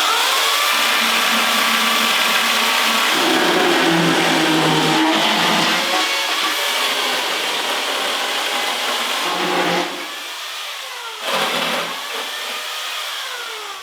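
Chainsaw cutting through a particle-board furniture piece, its pitch sagging and recovering under load. It eases off about ten seconds in, picks up again briefly, then runs lower near the end.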